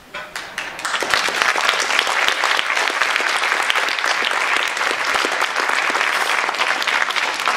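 Audience applauding. The clapping builds over the first second and then goes on steadily.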